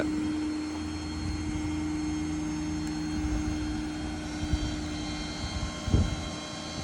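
Steady whine and drone of the IMT service crane's hydraulics running off the F-550's 6.7 Powerstroke diesel as the crane is worked by remote. A higher whine joins just after four seconds in, and a single knock comes about six seconds in.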